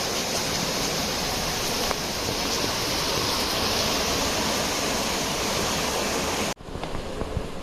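Steady rush of falling water, an even hiss. It cuts off abruptly about six and a half seconds in, leaving a much quieter background with a few faint clicks.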